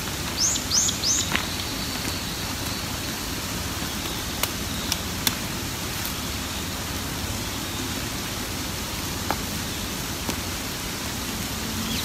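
Steady hiss of light rain, with a few sharp clicks around four to five seconds in and again near the end. A wild bird gives three quick, high, falling chirps about half a second in.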